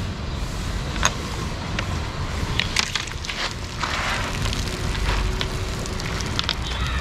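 Pepsi in a plastic bottle fizzing and crackling as a purple mixture of potassium permanganate, hydrogen peroxide and baking soda is poured in and reacts. The fizz turns into a hissing rush about four seconds in as foam gushes out over the neck. A few sharp clicks sound earlier.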